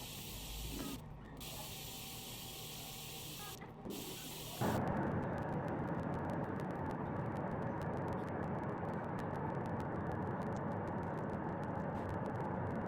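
Steady hiss-like test noise played through the sound system's speakers. About four and a half seconds in it switches abruptly to a louder, duller noise with the treble cut off.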